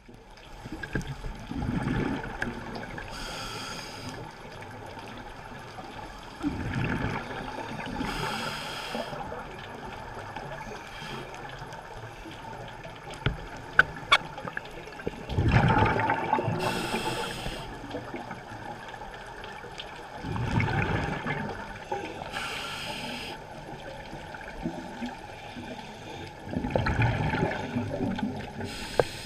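Scuba diver breathing through a regulator underwater: a short hissing inhale, then a rumble of exhaled bubbles, repeating about every five to six seconds, five breaths in all. A few sharp clicks about halfway through.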